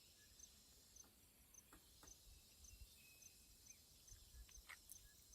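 Near silence: a faint high chirp repeating about twice a second, with a few fainter single chirps and a faint low rumble.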